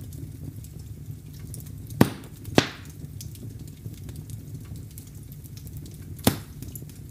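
Fire in a fireplace crackling over a steady low rumble of flame, with three loud pops: two about two seconds in, half a second apart, and one near the end.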